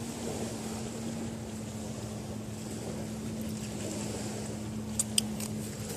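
A steady engine-like drone with a constant hum and a wind-like rush, broken by a few sharp clicks about five seconds in.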